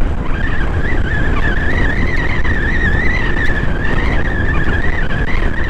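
Honda CB125 motorcycle being ridden at road speed: steady wind rumble on the microphone with a thin, high whine that wavers slightly in pitch.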